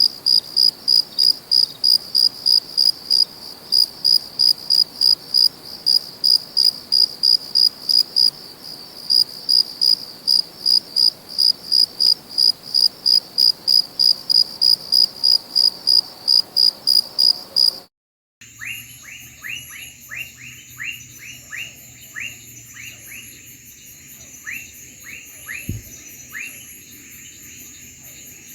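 A cricket chirping loud and steady, a short high pulse repeated about two to three times a second. About eighteen seconds in it cuts off abruptly, and a different chorus follows: quick rising chirps over a steady high-pitched insect drone, with one low bump near the end.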